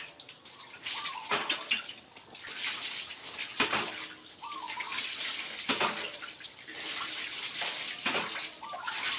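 Water poured from a plastic scoop splashing over wet monkeys and down onto a concrete floor, in several uneven pours a second or two apart.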